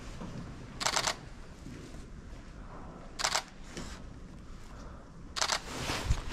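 Three short scrapes about two seconds apart, a jacket sleeve rubbing against a wrist-worn action camera as the arm swings while walking, with a dull thump near the end.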